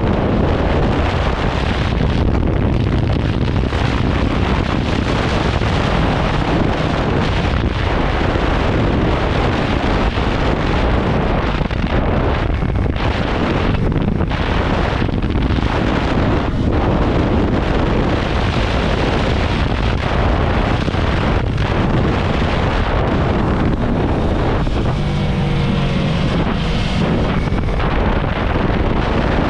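Heavy wind buffeting on the microphone of a moving motorcycle, drowning out most of the Yamaha YZF-R3's parallel-twin engine; near the end the engine note briefly comes through the wind.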